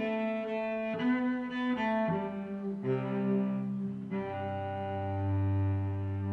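Background instrumental music: a slow melody of held notes, with a deep sustained bass note coming in about halfway through.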